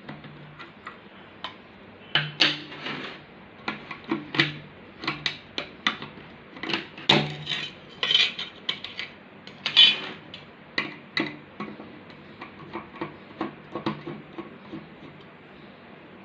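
Irregular clicks, taps and clinks of an electric iron being taken apart by hand, its plastic and metal parts knocking against each other.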